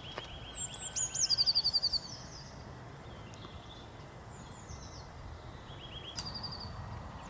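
Small songbird singing: a fast, high trill of about ten rapid notes a second, starting about a second in, then a shorter phrase near six seconds, over a faint steady background hiss.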